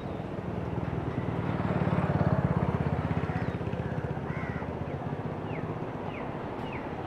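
A vehicle engine running past, a steady low pulsing hum that swells about two seconds in and then fades. A few short high bird chirps come near the end.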